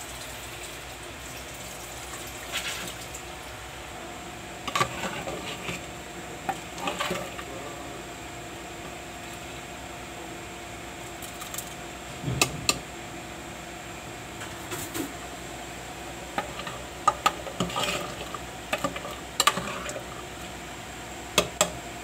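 A metal spoon clinking and scraping against a cooking pot in scattered groups of strokes, as when stirring, over a steady background hum.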